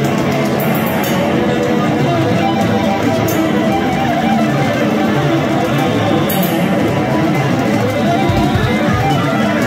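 Loud guitar-driven music, playing steadily and densely.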